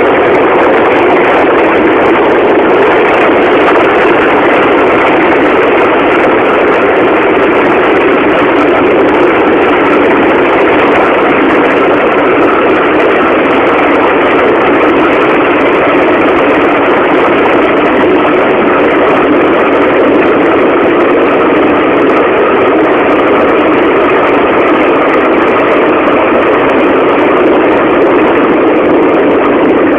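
Subway train in motion, heard from inside the car: a loud, steady running noise that does not change.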